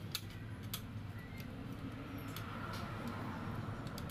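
A handful of light, scattered clicks and taps as small parts of a foot pump's inlet valve are handled, with a steady low hum underneath.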